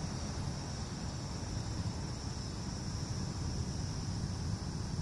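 Steady high-pitched insect chorus running without a break, over a low steady rumble.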